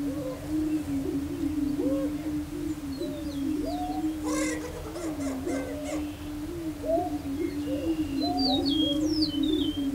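Greater prairie-chickens booming in courtship display on a lek: a steady low hooting hum from overlapping males, with shorter rising and falling whoops and cackles over it. A few high chirps come near the end.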